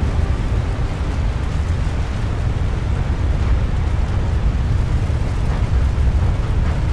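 Dramatised sound of a tsunami flood surging through a city: a continuous deep rumble with the hiss of churning water.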